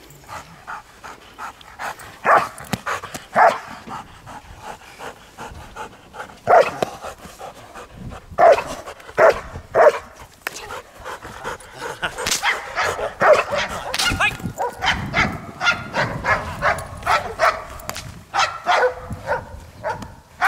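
German Shepherd Dog barking repeatedly at a protection helper during protection work, the barks coming closer together in the second half.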